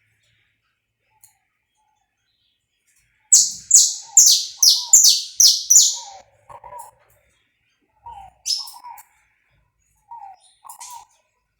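Saffron finch singing: after about three seconds of silence, a fast run of about seven loud, high notes, each sweeping downward. Softer, lower chirps and two short high notes follow.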